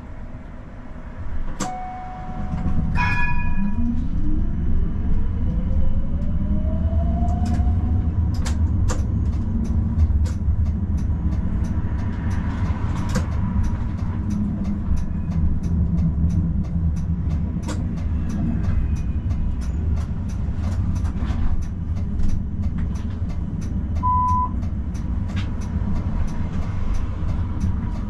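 Electric tram pulling away: a short signal tone, then the drive's whine rising in pitch as it speeds up. It settles into a steady rumble of wheels on rails with frequent sharp clicks, and a short beep comes near the end.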